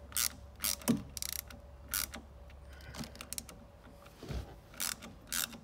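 Hand ratchet clicking in short runs as the small brass screws of a raw water pump cover plate are snugged up.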